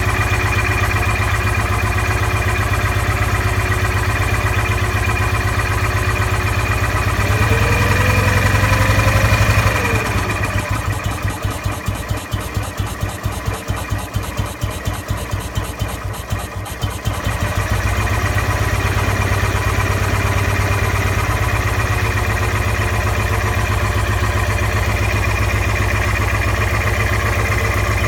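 BMW motorcycle engine idling steadily; about seven seconds in a whine rises, then the engine drops to a slower, uneven pulsing beat for several seconds before picking back up to its steady idle. The owner is trying to pin down a mystery noise in it.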